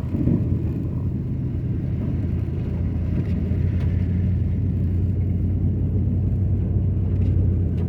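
Car on the move, heard from inside the cabin: a steady low drone of engine and road noise that stays even throughout.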